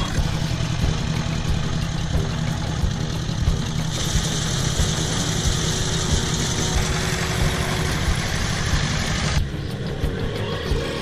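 Engine of a two-wheel walk-behind tractor running steadily as it drives a reaper cutting rice. A hiss joins in about four seconds in, and the sound turns thinner and a little quieter near the end.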